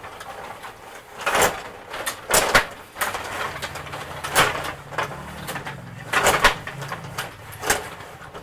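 Rod hockey game in play: rods sliding and rattling in the board while the puck and players knock, with sharp clacks every second or so, some in quick pairs.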